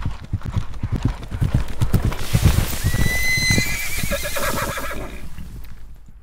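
Horse galloping, rapid hoofbeats throughout, with a horse neighing from about three seconds in.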